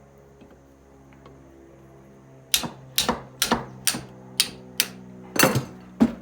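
A hammer, most likely a small sledge, strikes a corroded part of an air compressor pump about eight times at roughly two blows a second, starting about two and a half seconds in. The blows are meant to knock the rusted, stuck part loose.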